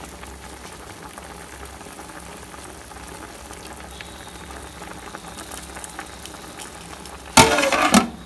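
Pot of chicken simmering on low heat with a steady faint bubbling. About seven seconds in, oil hits the hot charcoal in a small steel bowl set in the pot and sizzles loudly for under a second, the step that smokes the dish for a barbecue flavour, followed by a brief clink of metal as a steel tray goes over the pot.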